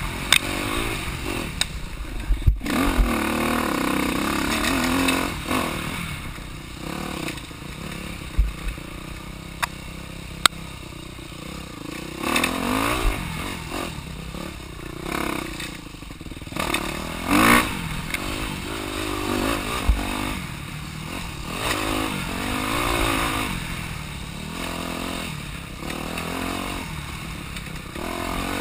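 Dirt bike engine revving up and down repeatedly as it is ridden over rough ground, with sharp knocks and rattles from the bike jolting over bumps.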